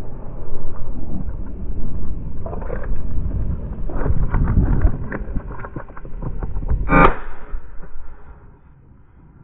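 Wind rumbling on a body-worn microphone, with a run of clicks and rustles around four to five seconds in and a single short, sharp sound about seven seconds in; it turns much quieter near the end.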